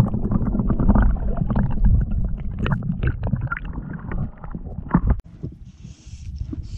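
Muffled underwater rumbling and gurgling of water moving around a submerged camera while a trout is released by hand, with many small clicks and knocks. It cuts off suddenly about five seconds in as the camera comes out of the water.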